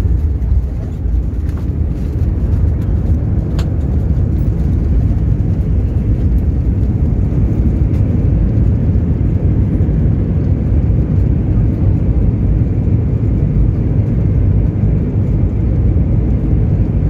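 Airbus A320 cabin noise during landing: a steady, loud low rumble of the engines and rushing air, heard from a window seat inside the cabin, growing slightly louder about two seconds in.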